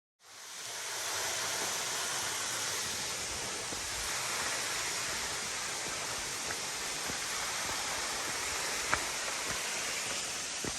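Waterfall rushing steadily, fading in at the start. A single faint click about nine seconds in.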